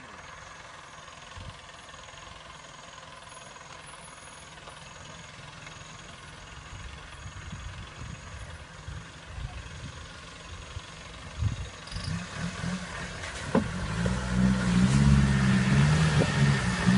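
Troller 4x4's engine coming down a steep muddy trail, faint at first and then growing much louder over the last few seconds as it comes close, its note rising and falling unevenly as it crawls downhill. A few sharp knocks sound shortly before it gets loud.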